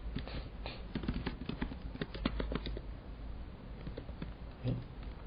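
Computer keyboard typing: a quick run of key clicks over the first few seconds, then a few scattered keystrokes and a short low thump near the end.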